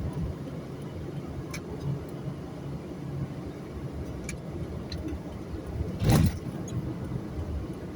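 Steady low road and engine rumble of a vehicle being driven along a highway. About six seconds in comes a brief, louder rush of noise, and a few faint ticks occur earlier.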